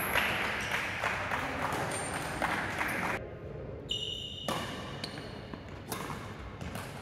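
Badminton rally: sharp racket strikes on the shuttlecock, one every second or so, with short high squeaks of shoes on the court near the middle.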